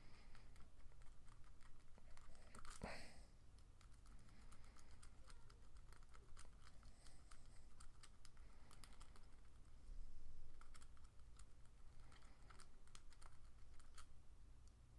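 Faint, irregular small clicks and scraping of a thin, ridged flat lockpick and small tension wrench working inside a padlock's keyway. The pick drags rough and sticky as its saw-like ridges catch on the pins.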